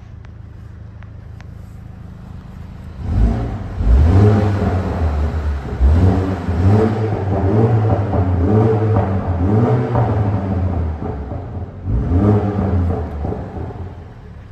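BMW M135i xDrive's 2.0-litre turbocharged four-cylinder engine idling, then revved in a run of quick throttle blips from about three seconds in, each rising and falling in pitch, before settling back to idle near the end.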